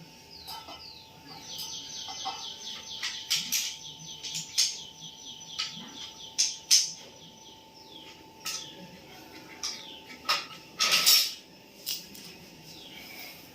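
Small birds chirping and twittering in quick runs of short, high, falling notes, among scattered sharp clicks, with a brief harsher burst about eleven seconds in.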